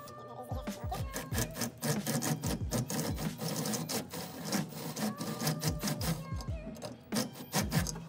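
Cordless drill with a step bit cutting into a metal instrument panel, a grinding, rasping drilling sound, over background music with a steady beat.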